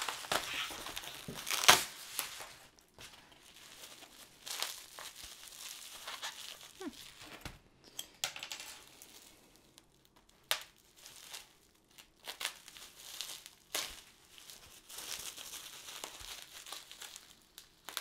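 Plastic bubble wrap crinkling and rustling as it is handled and slit open with a craft knife, with irregular sharp crackles.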